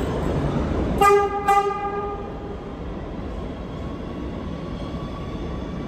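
Kawasaki R211A subway train sounding two short horn blasts about a second in, the second ringing on briefly, over the steady running noise of the train passing through the station.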